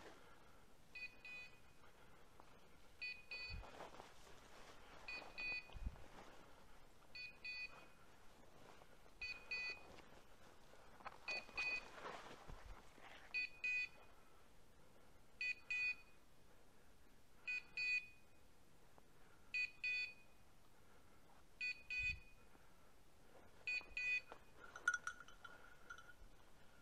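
Electronic beeper collar on a hunting setter sounding a short high beep about every two seconds, with one louder beep near the end; a steady repeating beep like this is typical of a beeper collar signalling the dog on point. Faint rustling of brush underfoot between beeps.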